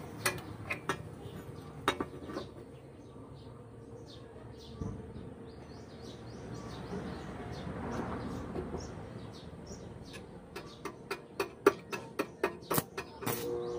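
Sharp taps and clicks of steel pieces being handled: a few scattered ones at the start, then a run of about three loud taps a second near the end. Faint bird chirps sit underneath.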